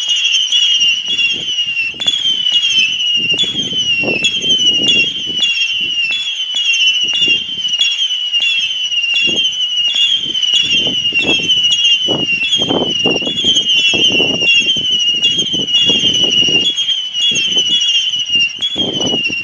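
A 240-shot firework barrage cake firing a long salvo of whistles. A new shrill whistle starts about every two-thirds of a second, each falling gently in pitch, so they overlap into one continuous screech. Under them run the thuds and crackle of the shots firing.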